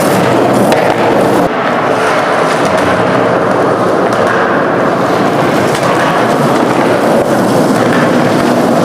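Skateboard wheels rolling on concrete: a loud, steady rough rumble.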